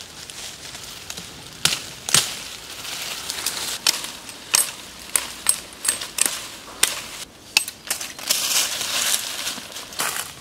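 Machete chopping green saplings: a series of sharp chops, roughly one every half second to a second, with leaves and branches rustling between them.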